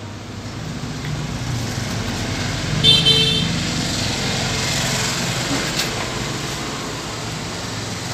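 Road traffic, a steady rumble and hiss of passing vehicles, with a short vehicle horn toot about three seconds in.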